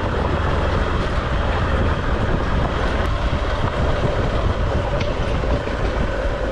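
Hero XPulse 200 single-cylinder motorcycle running steadily over a rough dirt trail, its engine mixed with a dense rumble of ground and wind noise.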